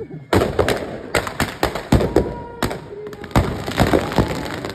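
Firecrackers packed inside a burning Ravan effigy going off in a rapid, irregular string of bangs and pops, a few louder bangs standing out.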